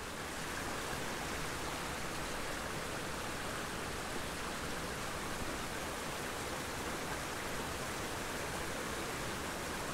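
Steady, even hiss of a small creek's running water.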